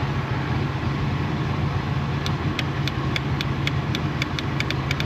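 Johnson/Evinrude outboard motor idling with a steady hum. From about two seconds in, sharp clicks come a few times a second.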